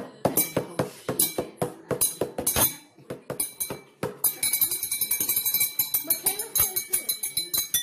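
Drinking glasses of water struck with a metal utensil in a quick drum-like rhythm, sharp clinks. From about four seconds in the strikes come much faster and almost continuously, and the glasses ring with steady tones.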